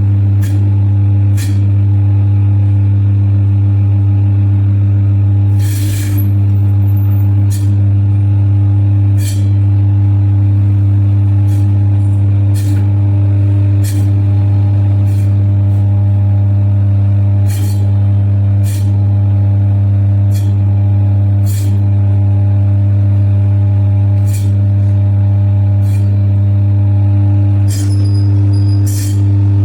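Electric chicken cutting machine running with a loud, steady motor hum, with sharp knocks about once a second, one longer and louder about six seconds in.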